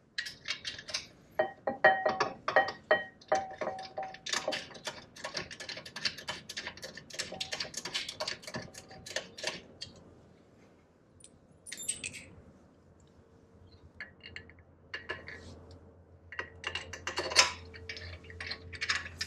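Metal clinking and rapid clicking of hand tools and bolts against a big-brake-kit caliper as it is fitted onto its mount, with a short lull in the middle.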